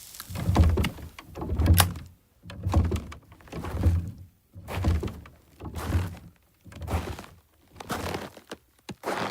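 A slow, steady series of heavy thuds, about one a second, nine in all, each with a short crisp click on top.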